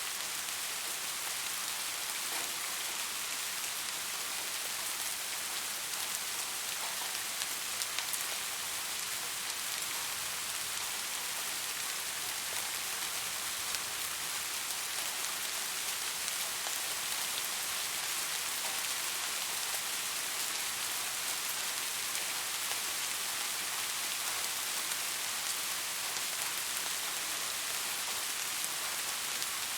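Steady rain falling on a surface, a dense even hiss of many drops with scattered individual drop ticks.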